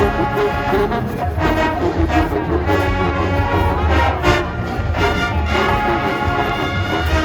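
Full marching band playing loudly: brass sections holding chords over bass drum and percussion.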